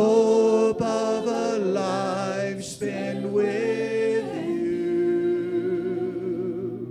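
A congregation singing a cappella, led by a man's voice over the microphone. The last note is held for about two and a half seconds and fades out as the song ends.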